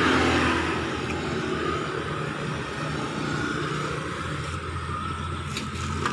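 A motor vehicle's engine hum, swelling briefly at the start and then running steadily.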